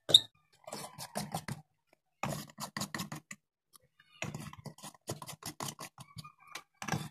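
Incandescent light bulbs being screwed back into their sockets. The bulb threads scrape and tick against the lampholders in several short bursts of rapid clicks, with a sharp click at the start.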